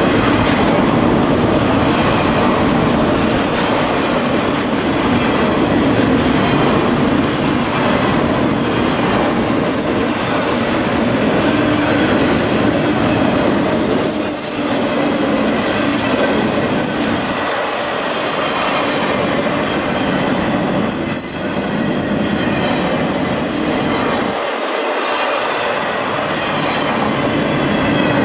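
Florida East Coast Railway freight train rolling past, its wheels running over the rails in a steady loud rumble, with thin high-pitched wheel squeal coming and going several times.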